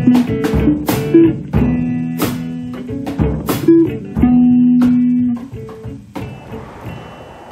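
Instrumental passage of a rock song: guitar with bass and drums, with held notes and sharp drum hits about every second and a quarter. It thins out and gets quieter near the end.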